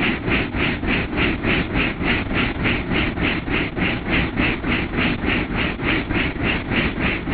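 Helicopter in flight heard from inside the cockpit: the main rotor beats evenly about four times a second over a continuous engine and rotor rumble.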